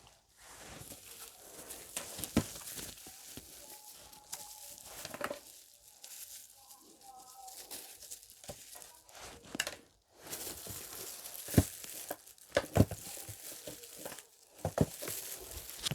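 Speaker boxes and their wrapping being opened by hand: irregular crinkling and tearing of the packing, with a few sharp knocks scattered through.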